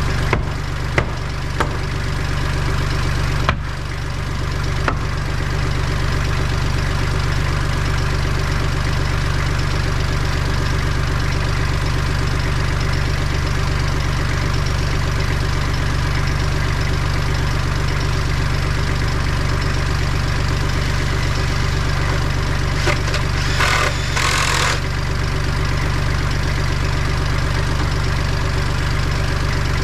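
Kubota L3800 tractor's three-cylinder diesel engine running steadily at idle. A few sharp knocks come in the first five seconds, and a short burst of hiss comes about 23 seconds in.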